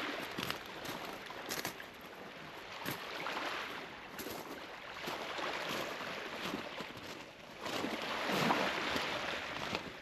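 Small waves washing onto a beach, surging and ebbing every few seconds, the strongest wash about eight seconds in, with scattered faint clicks.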